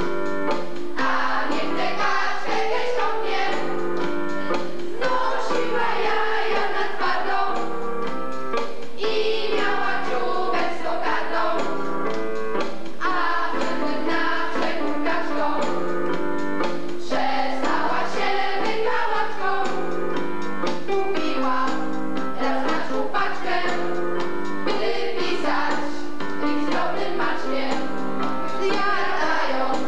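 A choir singing a song with musical accompaniment, steady throughout.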